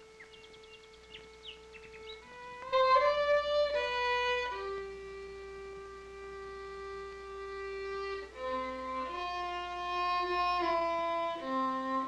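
Solo violin playing a slow melody: one long held note, then a tune of sustained notes that comes in louder about three seconds in.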